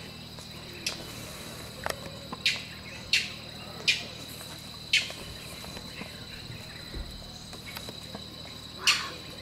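Tropical forest ambience: a steady, high-pitched insect drone with several short, sharp, high chirps at irregular intervals, the loudest near the end.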